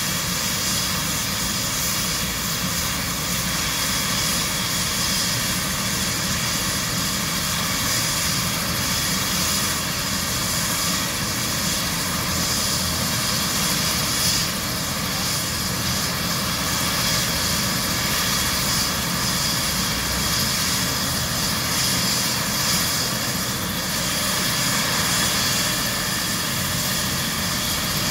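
Turbine helicopter warming up on the ground after engine start: a steady turbine whine with the main rotor turning, holding the same pitch and level throughout.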